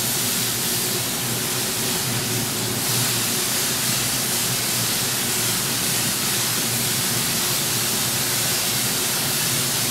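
Steady rushing air of a powerful mobile workshop extraction fan running, with a faint low hum under it. The hiss grows a little brighter about three seconds in.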